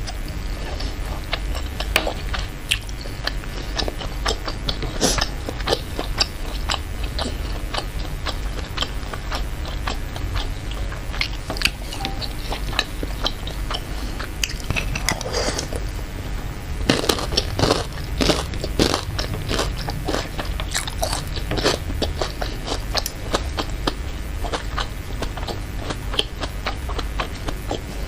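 Close-miked chewing and biting of chewy Indonesian meatballs (pentol and bakso) in chili broth: wet mouth clicks and smacks, busiest about two-thirds of the way through, over a steady low hum.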